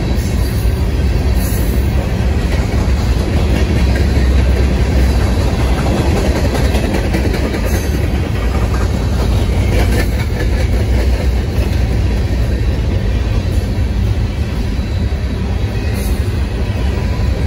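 Covered hopper cars of a freight grain train rolling past close by: a steady, loud rumble of steel wheels on rail, with scattered clacks over the rail joints.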